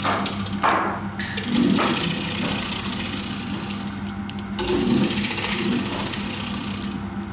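An electric potato slicing machine is running steadily, its motor humming as the spinning blade cuts potatoes into chip slices that spill out of the chute.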